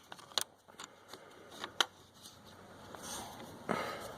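Quiet handling noise: a few scattered light clicks and rustles, with a soft rush near the end. No engine is running.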